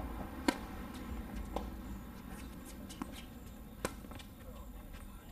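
Tennis ball being struck by rackets during a doubles point: a sharp serve hit about half a second in, then fainter hits and bounces, and another sharp racket hit a little before four seconds.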